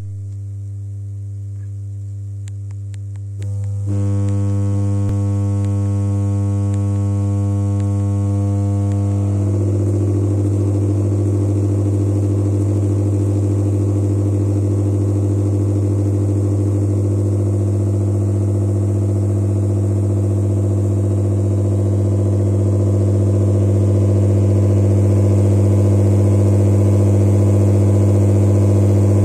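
Vibrating shaker tray of sand and grit running with a steady low electric hum, with a few faint clicks in the first seconds. The hum steps louder about four seconds in, a rattle of grains on the tray joins about ten seconds in, and it grows slightly louder near the end.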